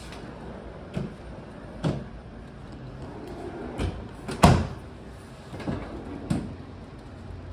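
Doors and drawers opening and shutting: a string of about six knocks and clunks, the loudest a sharp bang about four and a half seconds in.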